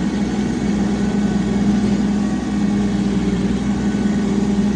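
Tractor engine running steadily at working throttle while driving a PTO bush hog rotary cutter: a continuous, even drone.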